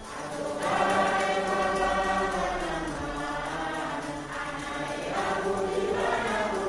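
A choir singing long held notes in harmony, swelling in twice.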